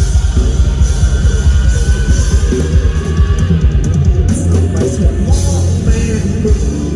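Live rock band playing loud through a big PA sound system: drum kit and heavy bass under a sustained electric guitar line.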